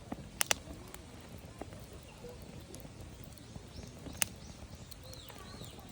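Wood campfire burning and crackling, with sharp pops: two in quick succession about half a second in and a single loud one around four seconds.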